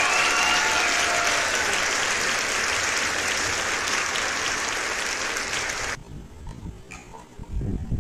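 Applause, loud and continuous, cutting off suddenly about six seconds in. A quieter stretch follows, with a low knock near the end.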